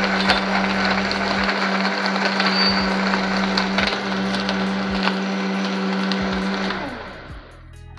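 Loud high-powered countertop blender running at full speed, a steady motor hum under the grinding of ice blended with water and jaggery. About seven seconds in it is switched off and spins down with a falling pitch.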